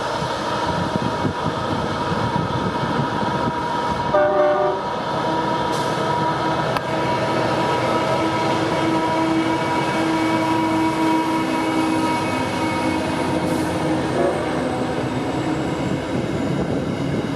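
Coal freight train's wagons rolling past, a loud continuous rumble with steady high whining tones over it. About four seconds in, a brief cluster of several tones sounds together.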